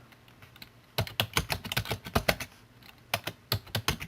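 Computer keyboard typing: quick runs of key clicks, starting about a second in, with a short pause near the three-second mark, as a password is typed in.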